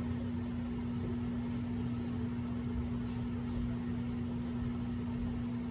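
Microwave oven running: a steady hum with one strong low tone over a low rumble, and a couple of faint high ticks about halfway through.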